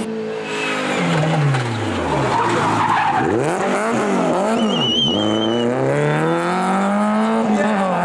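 Renault Clio RS N3 rally car's four-cylinder engine. Its revs fall as it brakes into a hairpin, then rise and fall in quick blips through the turn, with a brief tyre squeal about five seconds in. The revs then climb steadily as it accelerates away.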